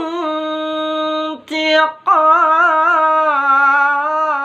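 Quran recitation in a melodic, drawn-out style: a single voice holds a long, steady note on the words "dhu intiqam", breaks off briefly about a second and a half in, then carries on with a wavering, ornamented held note.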